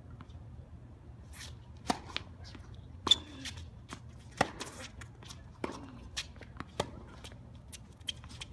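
Tennis rally on a hard court: racket strikes on the ball and ball bounces, sharp pops about a second apart, the loudest about three seconds in.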